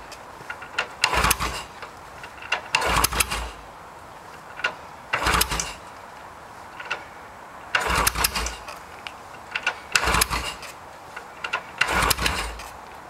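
Yamaha XS650 parallel-twin engine being kick-started six times, about one kick every two seconds. Each kick turns it over with a short burst of uneven firing that dies straight away: the engine is starting to catch but will not keep running.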